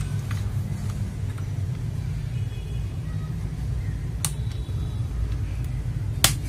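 A steady low background rumble, with two sharp clicks of keyboard switch or keycap handling, one about four seconds in and a louder one near the end.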